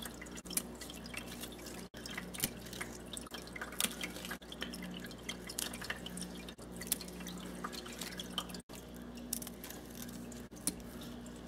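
Scissors snipping plant stems: a quiet, irregular scatter of small sharp clicks and snips over a steady low hum.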